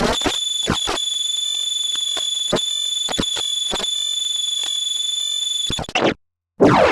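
A steady, high-pitched electronic alarm tone, like a smoke-alarm sounder, laced with rapid clicks, that cuts off about six seconds in. A different, noisier sound starts just before the end.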